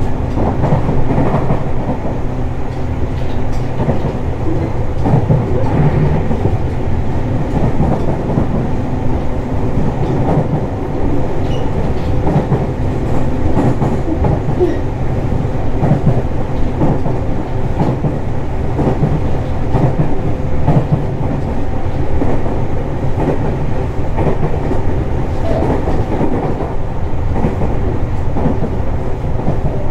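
Tobu 60000 series electric train running steadily between stations, heard from inside the car: a loud, continuous rumble of wheels on rail with a steady hum and the clatter of wheels over rail joints.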